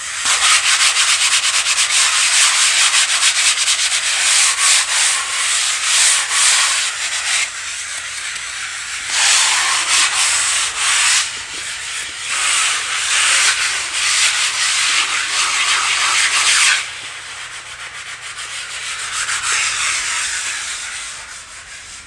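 Sandpaper rubbed by hand over a cement-rendered wall: a loud, scratchy rubbing of quick strokes that breaks off briefly twice and stops abruptly about 17 seconds in, followed by a fainter rubbing.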